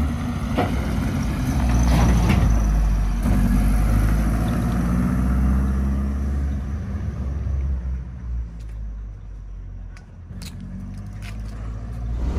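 Turbocharged Zetec engine of a Mk1 Ford Fiesta running on a road drive, its note rising and falling with the throttle. It eases off and quietens about eight seconds in, then picks up again near the end.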